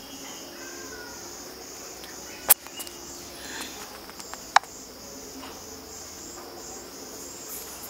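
Insects chirping steadily in the background, a high, evenly pulsing trill, with two sharp clicks about two and a half and four and a half seconds in.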